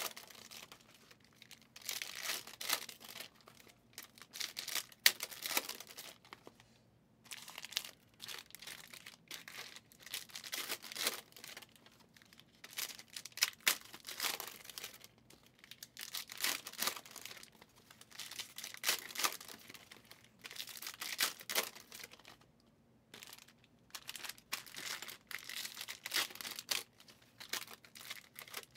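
Wrappers of Panini Prizm football trading-card hobby packs being torn open and crinkled, in irregular bursts of crackling every second or two, with the cards handled in between.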